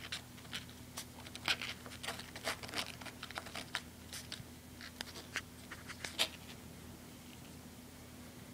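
A pet skunk rummaging in a black bag: a run of quick crinkling, scratchy clicks from the bag's material, thinning out after about six seconds.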